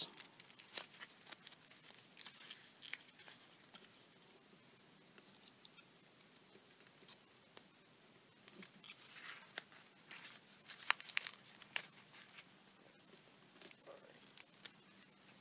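Faint crinkling and crackling of origami paper as fingers crease small inside reverse folds, in scattered short clicks with a busier cluster a little past the middle.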